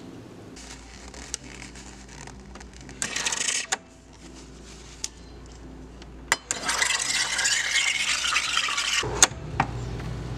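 Espresso machine steam wand hissing. There is a short blast of steam about three seconds in, then a longer, louder hiss of steam into a stainless milk pitcher for about two and a half seconds that cuts off with a click near the end.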